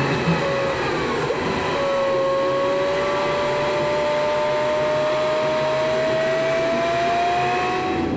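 Road vehicle driving on the highway, heard from inside the cab: steady engine and road noise, with a whine that climbs slowly and evenly in pitch from about two seconds in.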